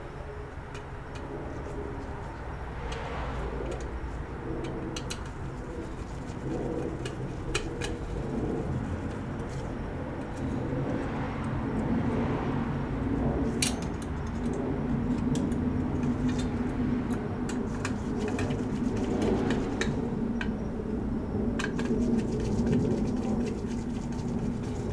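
Screwdriver clicks and light metal taps as a copper heatsink is screwed back onto a cable modem's circuit board. Beneath them runs a low steady hum that grows louder from about halfway through.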